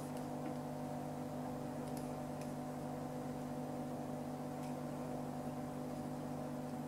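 Steady low hum made of several even tones, like a motor or electrical hum, with a few faint clicks.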